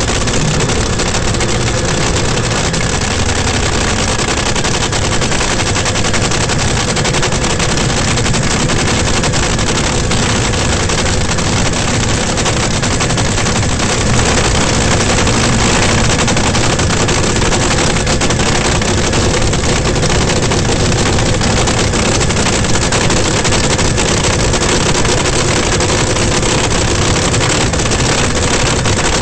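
Top fuel dragster's supercharged nitro V8 idling, heard from right above the engine: loud and steady, with a slight step up in level about halfway through.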